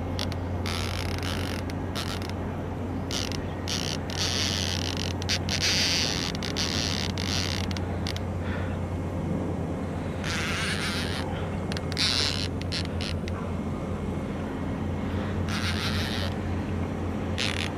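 Fishing reel's drag ratcheting in repeated bursts of clicking, some short and some lasting a few seconds, as a hooked fish takes line against the bent rod.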